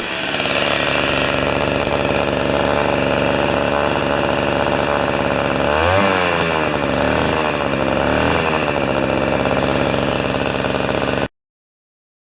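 Tecumseh two-stroke snow-thrower engine running at a steady speed after sitting unused for years. Its speed dips and picks back up about six seconds in, and again more gently around eight seconds. The sound cuts off abruptly near the end.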